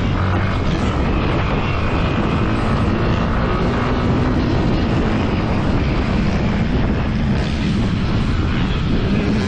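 Yamaha WR155R's single-cylinder four-stroke engine running under way on a dirt track, steady and loud, with wind noise on the microphone.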